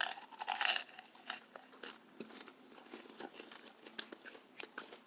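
A person chewing a crunchy snack close to the microphone: a dense run of loud crunches in the first second, then scattered smaller crunches.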